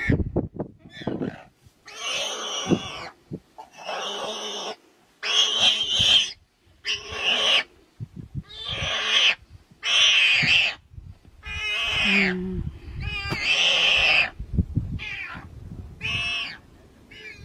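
A wild pig caught by a lion squealing in distress: about ten harsh, loud shrieks, each under a second or so long, repeated roughly once a second, with scuffling of the struggle between them.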